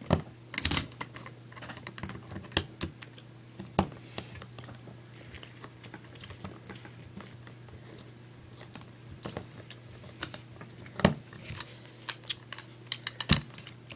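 Irregular small clicks and taps of a screwdriver turning a screw into an airsoft sniper rifle, with metal and plastic parts being handled, and a few sharper knocks near the end. A faint steady hum lies underneath.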